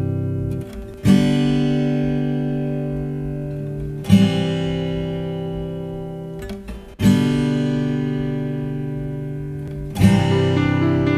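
Background music: slow acoustic guitar chords, one struck about every three seconds and left to ring and fade before the next.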